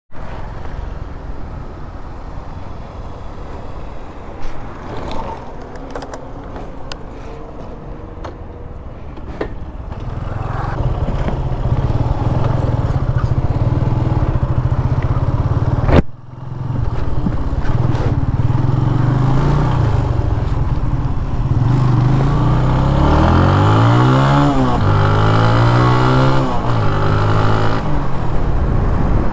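TVS Apache RTR 180 motorcycle's single-cylinder four-stroke engine running through its stock exhaust with a deep, grunty note. The engine gets louder about a third of the way in. A sharp crack comes about halfway through, and near the end the engine is revved up and down about three times in quick succession.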